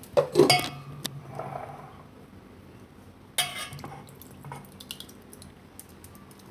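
Steel spoon clinking and scraping against a stainless steel bowl and a clay bowl as thick curd is spooned onto dry flour: a few clinks at the start, one sharper clink about three and a half seconds in, and soft scraping and light ticks between.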